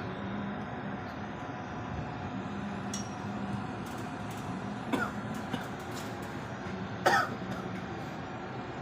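A person coughing or clearing the throat twice, briefly, about five and seven seconds in, the second louder, over a steady background hum with a few light clicks.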